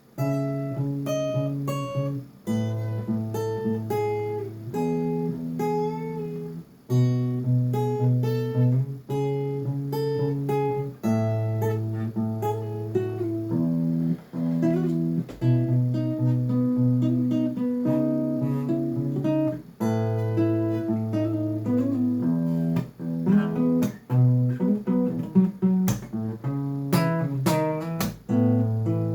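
Acoustic guitar played solo: a slow instrumental piece of plucked chords over bass notes, in phrases with short breaks, with quicker picked notes near the end.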